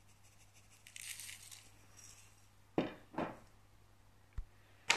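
Dried red pepper flakes being sprinkled onto raw vegetables in a stainless steel pot: a brief, faint rustling hiss, then a few light clicks and a soft thump of the spice container being handled.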